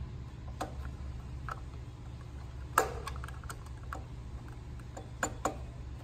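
Light plastic clicks and taps as a Lefoo pressure switch cover is fitted back onto an air compressor's pressure switch. There are a handful of scattered clicks, with one louder click about three seconds in, over a steady low hum.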